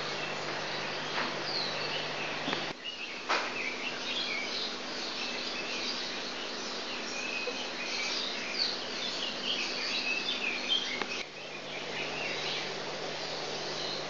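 Small birds chirping over a steady low hum and hiss of aquarium equipment, with a brief click about three seconds in.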